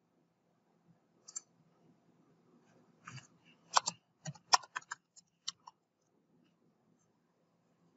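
Typing on a computer keyboard: two clicks about a second in, then a quick run of about a dozen keystrokes between about three and six seconds in, over a faint low hum.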